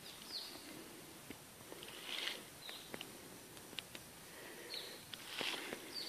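Footsteps crunching on dry leaves and soil, with two louder rustles a few seconds apart and scattered small ticks. A bird gives short falling chirps four times.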